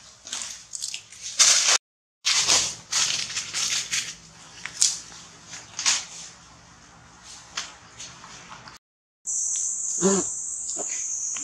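Scattered rustling and crackling of leaves and branches as macaques move through foliage and leaf litter, stopping dead twice for a moment. In the last two seconds a steady high insect drone takes over, with one short low-pitched call about ten seconds in.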